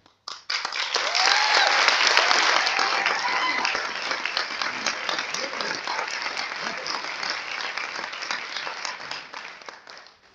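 Audience applauding and cheering, with a few shouted cheers in the first few seconds; the clapping starts suddenly and dies away near the end.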